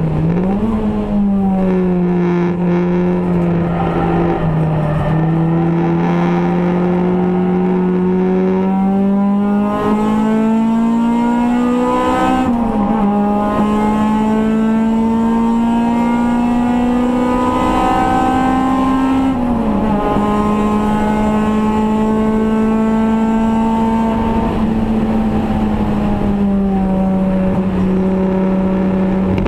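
Race car's engine heard from inside the caged, stripped cabin under race driving. Its pitch climbs steadily as it pulls, dips sharply about twelve seconds in, falls near twenty seconds, then holds at an even pitch.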